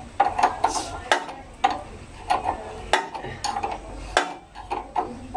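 Hand wrench clicking and clinking on a rear suspension linkage bolt of a Kawasaki KLX 150 as the bolt is refastened during reassembly. The metal clicks come in irregular short clusters, each with a brief ring.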